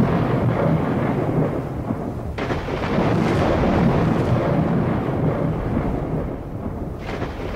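Thunder rumbling, with a fresh crack about two and a half seconds in and another near the end, each rolling away.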